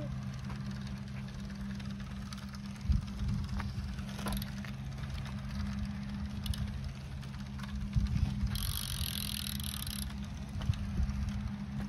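Small kids' pedal bike rolling on asphalt under a steady low hum. About two-thirds of the way in, the rear hub's freewheel buzzes for about a second and a half as the rider coasts.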